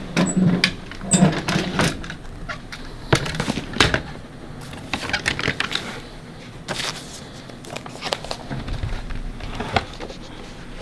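A large bound record book being handled on a table: irregular knocks and thumps with paper rustling, loudest in the first few seconds.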